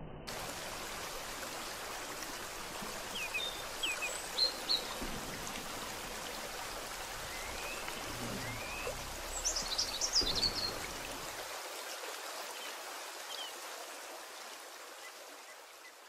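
Steady rushing noise, like running water, with short high bird chirps a few times, clustered around 4 seconds and 10 seconds in. The deep low end of the rush drops away about two-thirds of the way through.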